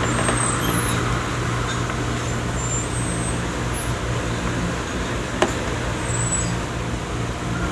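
Steady background hum and hiss, with a single sharp click about five and a half seconds in.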